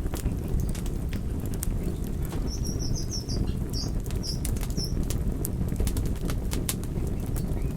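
Campfire crackling: sharp, irregular pops and snaps over a steady low rumble of burning wood. A few short high chirps come between about two and a half and five seconds in.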